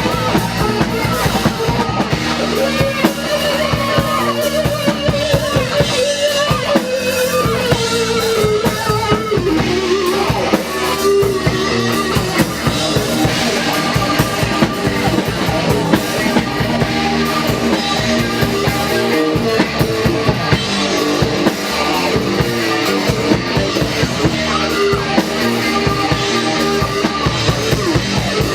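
Loud band music with a drum kit beating a steady rhythm and guitar playing over it.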